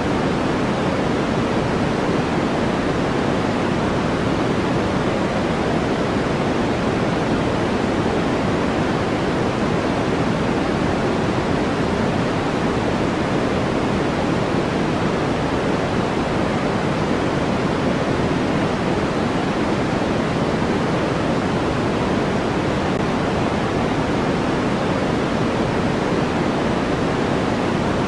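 Steady white-noise sleep track: an even, unbroken rushing hiss with no rhythm or events, fullest in the low-middle range and softer in the highs.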